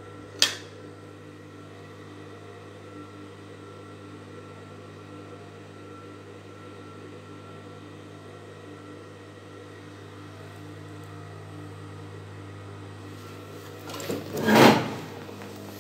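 Steady electric hum of an industrial five-thread overlock machine's motor running with the machine not stitching. A sharp click sounds about half a second in, and a louder rustle and knock come near the end.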